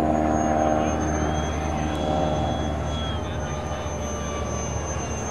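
70 mm electric ducted fan of a radio-controlled F-20 jet, a Wemotec fan driven by an ARC inrunner motor, whining in flight at a steady high pitch over a broad rushing noise.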